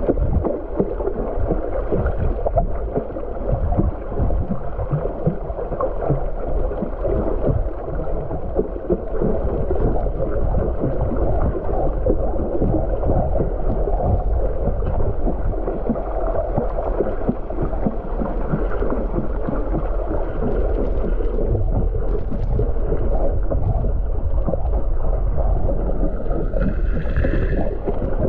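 Muffled underwater noise picked up by a submerged camera: a steady low rush and rumble of water. A short high-pitched sound with several tones is heard about a second before the end.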